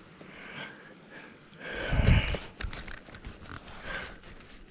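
Kayak moving through lily pads under paddle: soft water swishes and faint knocks, with one louder rushing stroke about two seconds in.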